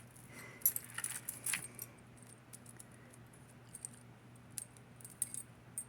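Tangled jewelry pieces clinking and jangling as they are pulled apart by hand, busiest in the first second and a half, then a few scattered light clinks. A faint steady low hum sits underneath.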